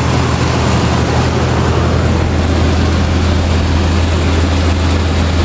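Old Chevrolet Suburban's engine idling steadily, a constant low hum with hiss over it.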